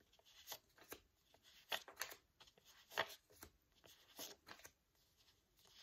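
Faint, irregular papery flicks and rustles as handheld paper flashcards are flipped one after another, over near-silent room tone.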